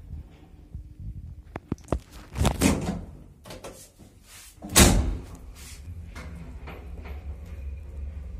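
Old block-of-flats passenger lift: sharp clicks and a clatter, then a heavy door thud about five seconds in as the doors shut, followed by a low steady hum as the car starts to travel.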